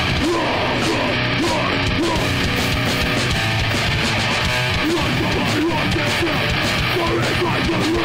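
Live hardcore metal band playing at full volume: distorted electric guitars, bass guitar and a drum kit with cymbals, without a break.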